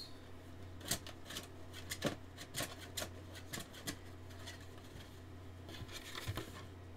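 Cardboard and paper packaging rustling and clicking as the contents are lifted out of a phone's retail box, in irregular crinkles and taps with a couple of sharper clicks about one and two seconds in. A steady low hum runs underneath.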